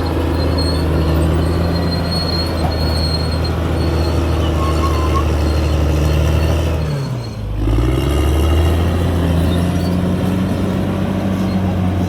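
Caterpillar D6R XL crawler bulldozer's diesel engine running steadily, with a faint high whine above it. About seven seconds in, the engine note dips briefly and comes back up.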